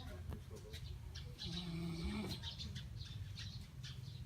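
Snoring: a sleeper's rough breathing with one drawn-out low snore about one and a half to two seconds in, its pitch rising slightly at the end.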